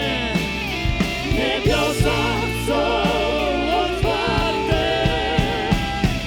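Live worship band playing, with singers holding drawn-out wordless vocal lines over sustained keyboard chords and drum hits.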